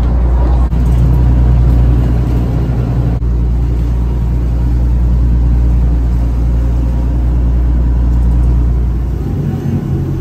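Motorboat engine running steadily: a loud, deep, continuous drone with water and wind noise on top. Near the end the deepest part drops away and a slightly higher engine hum takes over.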